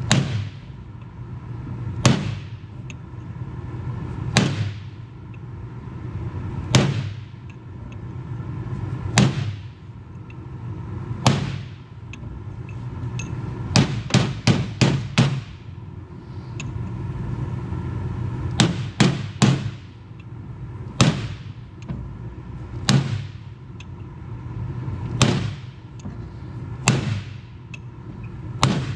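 Hammer blows on a steel punch, driving a bearing race into a tractor's front planetary hub. The blows are mostly single, about every two seconds, each ringing briefly, with a quick run of five about a third of the way through and three more a little later. A steady hum runs underneath.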